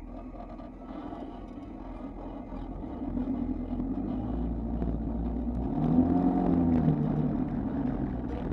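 Off-road vehicle's engine running as it drives through loose sand. It gets louder from about three seconds in and revs up and back down around six seconds in.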